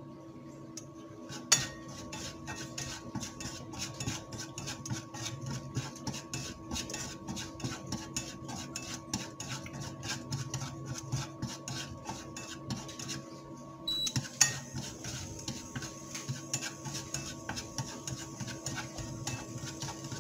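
Chopsticks stirring and tossing small mushrooms in a stone-coated non-stick frying pan. They make rapid clicks and scrapes against the pan, several a second, with a sharper knock about a second and a half in and another near fourteen seconds. A faint steady hum runs underneath.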